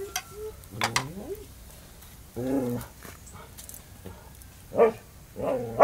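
A dog barking and whimpering in four short calls, the first rising in pitch about a second in.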